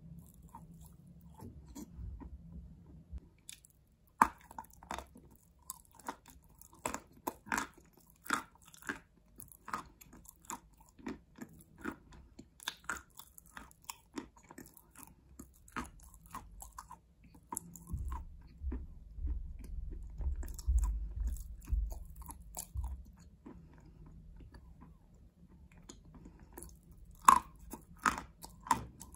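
Close-up crunching and chewing of hard chalk: a loud bite about four seconds in and another near the end, with a steady run of crisp crunches between them.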